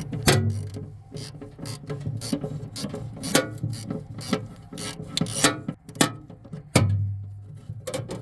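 Ratchet wrench clicking in short, irregular strokes as it loosens the 7/8-inch fitting of an electric fryer's high-limit thermostat.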